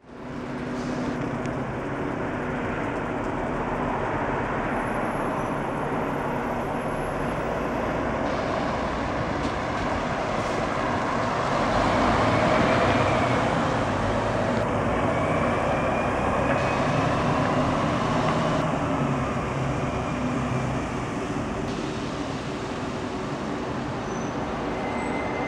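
Fire engine's diesel engine running as it pulls away on a rain-wet street, with tyre hiss from traffic on the wet road. The sound is loudest as a car passes close about halfway through. A faint tone glides up and down in the second half.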